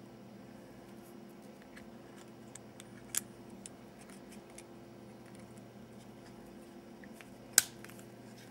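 Two sharp clicks, one about three seconds in and a louder one near the end, with faint ticks between them, over a steady low electrical hum: small objects being handled.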